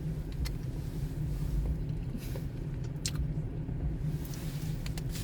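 Steady low rumble with a few light clicks.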